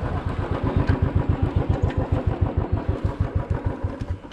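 Motorcycle engine running at low revs with an even, rapid beat of pulses, dying away near the end.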